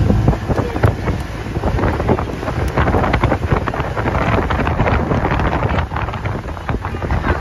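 Wind buffeting the microphone aboard a boat, with water rushing and splashing against the hull.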